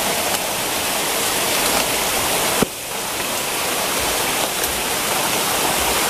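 Steady rush of a small waterfall splashing down over rocks, with a brief dip and click a little over two and a half seconds in.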